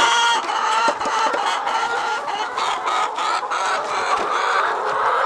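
A flock of laying hens clucking and calling, many short calls overlapping without a break.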